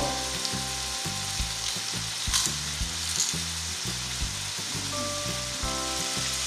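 A pan of cime di rapa and crumbled sausage sizzling steadily as it cooks in oil on the stove, with one sharp click about two and a half seconds in.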